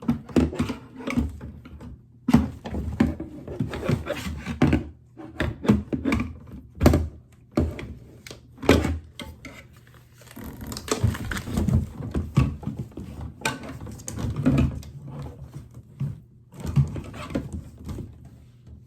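Hard plastic knocking, clicking and scraping as the handle of a RevAir reverse-air dryer is pushed and worked into its dock again and again, not yet seating.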